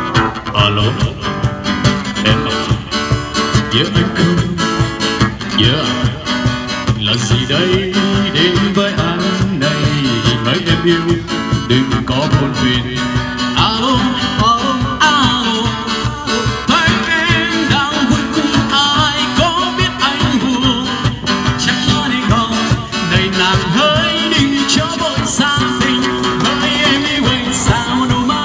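Live acoustic band: two acoustic guitars strummed over a steady box-drum beat, with a male singer singing through a microphone.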